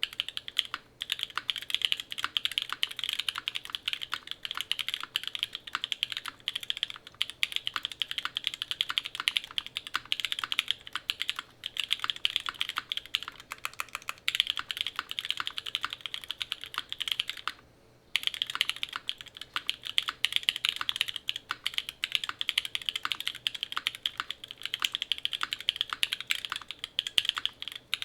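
Fast, continuous typing on a Keycult No.2/65 mechanical keyboard with an aluminum plate, no foam dampening, Krytox 205g0-lubed MM switches and GMK keycaps. The keystrokes are crisp clicks with a brief pause a little past halfway.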